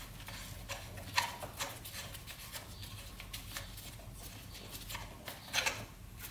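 Scattered light clicks and taps of gloved hands and a small tool working fasteners loose on an ATV's frame under the seat, irregular, with a louder knock about a second in and another near the end.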